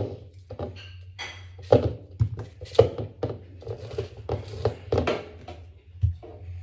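Irregular knocks, taps and rustling as hands break up watermelon chunks and push them into a Magic Bullet blender cup, over a steady low hum.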